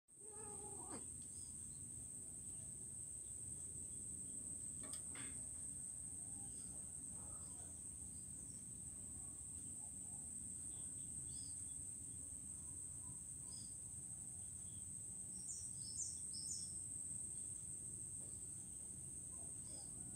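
A steady, high-pitched insect drone with a few scattered bird chirps, a short cluster of them about sixteen seconds in, over a low background rumble.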